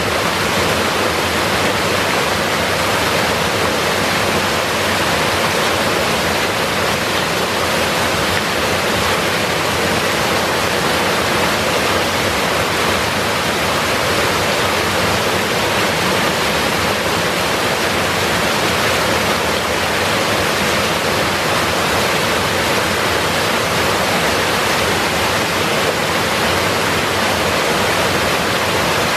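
Loud, steady rush of flowing river water, an even hiss that never lets up.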